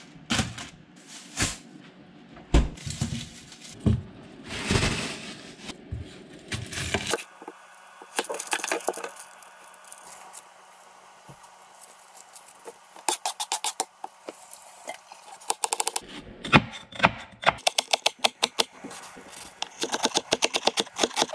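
Kitchenware handled at close range: dishes, pans and metal utensils clattering and scraping in irregular knocks. A low steady hum runs through the middle, and quick runs of light clicks come in the second half.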